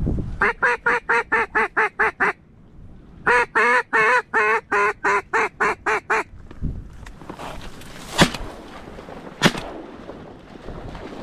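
Mallard quacking in two fast runs of about a dozen evenly spaced quacks each, followed by two shotgun shots about a second and a half apart.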